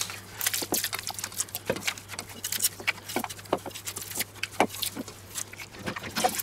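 Irregular small clicks and crackles of food prep: dry onion skin being peeled off with a knife over a wooden chopping board, alongside gloved hands kneading minced meat in a steel bowl.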